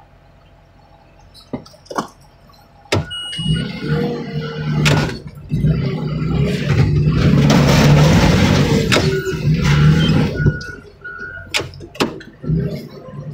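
A heavy machine's engine starts working hard about three seconds in and keeps running loud, its pitch and load shifting, with sharp metal knocks and clanks. Before that there are two single knocks.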